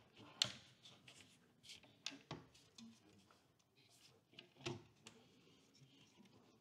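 Faint knocks and light scrapes of a green plasterboard loft-hatch door panel being handled and fitted into its metal ceiling frame, with a few short taps, the clearest about half a second in, around two seconds in and near five seconds in.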